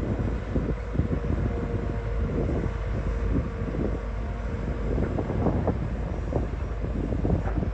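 Hyundai 220LC excavator's diesel engine running steadily under working load, with a constant whine over the rumble and frequent short knocks and clatter from the machine at work.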